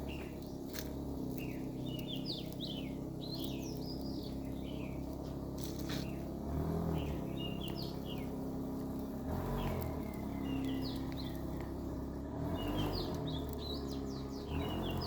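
Small birds chirping and twittering in quick, high repeated calls, over a steady low mechanical hum that swells briefly a few times.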